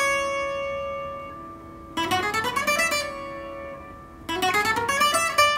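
A 12-string acoustic guitar picked fast. A quick rising run of single notes in A major is played twice, and each run is left ringing for a second or more.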